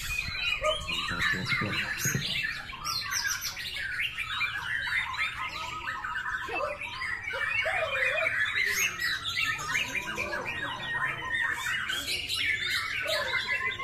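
Several caged white-rumped shamas (murai batu) singing at once: a dense, overlapping chorus of fast, varied whistled phrases and trills with no break.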